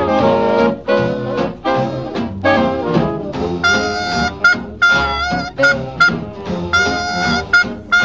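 Instrumental swing-style jazz music led by brass, playing short, rhythmic phrases.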